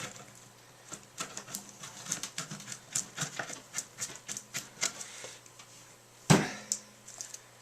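Irregular scraping and clicking as loose wood is dug out of the hollow of a split juniper log, with one sharp knock about six seconds in.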